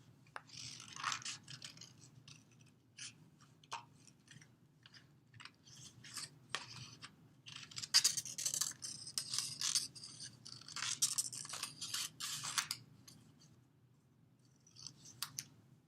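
Scissors cutting out a paper shape: a run of short, irregular snips with paper rustling, busiest in the second half.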